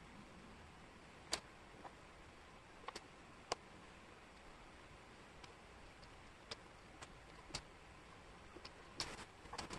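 Wooden jigsaw puzzle pieces clicking and tapping against each other and the tabletop as they are picked up and fitted. The clicks are faint and scattered, with a quick run of them near the end, over a low hiss.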